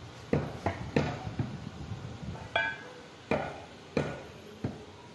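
Meat cleaver chopping beef on a wooden log block: about seven sharp, irregularly spaced chops. One, about two and a half seconds in, has a brief metallic ring.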